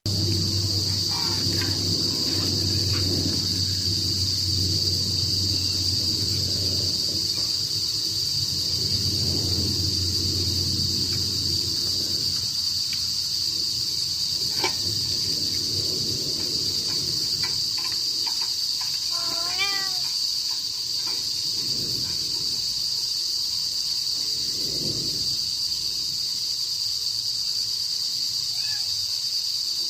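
Crickets chirping in a steady, high-pitched chorus. A low rumble underneath fades after the first several seconds, and a short warbling call sounds about two-thirds of the way through.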